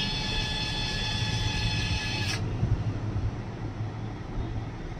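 Small electric screwdriver running while driving a laptop motherboard screw: a steady whine that cuts off sharply with a click after about two and a half seconds, leaving a low hum.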